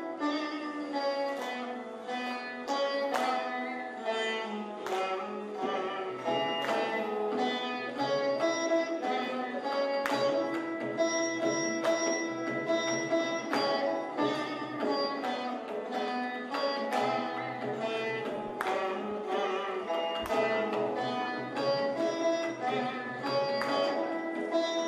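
Instrumental background music: a plucked string instrument plays a busy melody of quick notes over a steady low drone.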